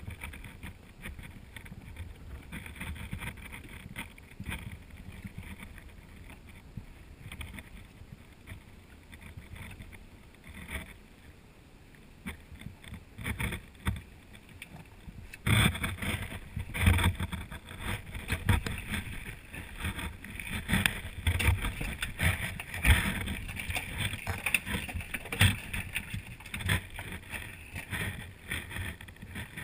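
Water lapping against a small boat's hull, with scattered knocks from gear in the boat. About halfway in it turns suddenly louder and busier, with rapid splashing and knocking as a line is worked over the side.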